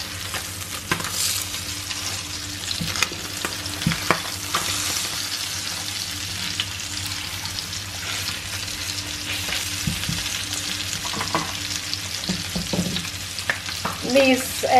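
Almond-flour-coated lemon sole fillets sizzling steadily in hot olive oil and butter in a frying pan, with occasional clicks and scrapes of a slotted spatula as the fillets are turned.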